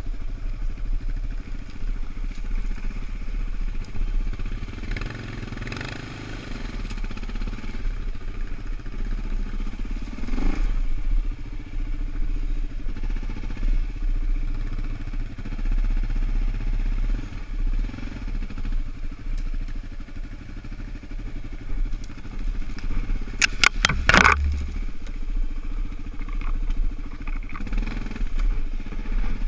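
Suzuki LT-Z400 quad's single-cylinder four-stroke engine running at varying throttle while riding a trail. About three-quarters of the way through, a brief clatter of several sharp knocks is the loudest sound.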